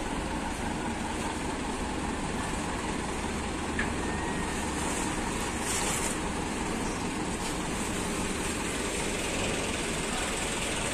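Steady rumble of a truck driving off a ferry across the steel loading ramp, with a single clank about four seconds in.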